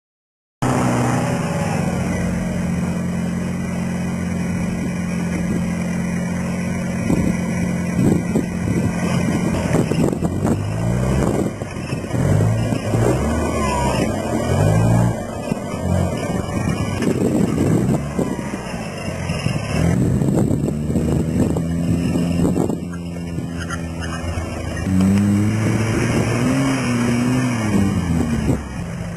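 Modified Toyota LJ70 Land Cruiser off-road truck's engine running, revving up and down repeatedly with steadier stretches between.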